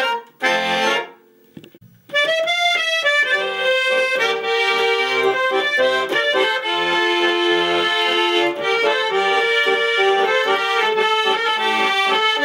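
Garmon, the Russian button accordion, played solo: it closes one tune with a final chord about half a second in, pauses for about a second, then starts the next song's introduction, a melody over held chords and a pulsing bass.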